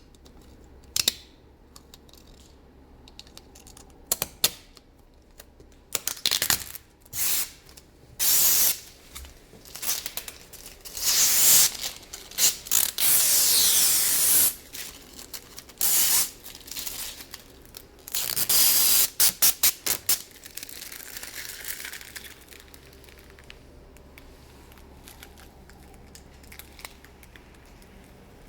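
Thin protective film being peeled off refrigerator steel sheet, in hissing, crackling tearing bursts with short clicks between, the longest pulls about 11 to 14 seconds in.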